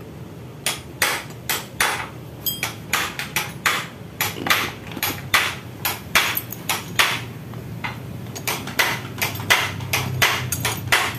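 A hammer tapping repeatedly on metal engine parts of a motorcycle: an irregular run of sharp, ringing strikes, two to three a second, with a short pause about two-thirds of the way through.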